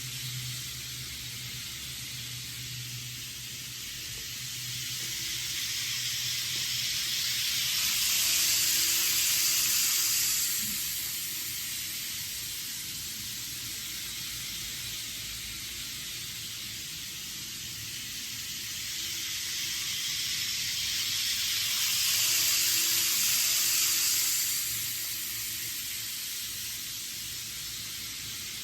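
N-gauge model 500 Series Shinkansen running on its track: a steady running hiss of wheels and motor that swells twice, some fourteen seconds apart, as the train comes close by.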